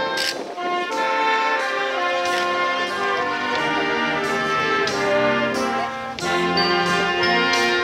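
High school wind band of brass and saxophones playing held chords with drum kit and mallet percussion. The music dips briefly between phrases about half a second in and again just after six seconds.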